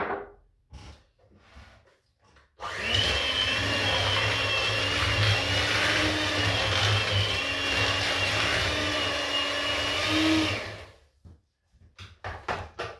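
Electric hand mixer running with its whisk beaters in a bowl of brownie batter, beating in a freshly added egg: a steady motor whine that starts a few seconds in and stops shortly before the end. A few light knocks follow as the mixer is lifted out.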